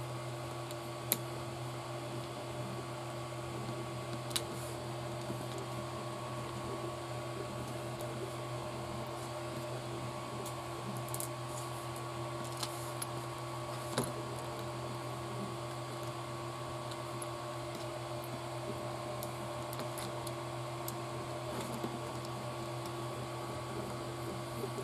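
Steady electrical hum, with a few sharp clicks and light ticks from small plastic RC-kit parts and screws being handled and screwed in by hand.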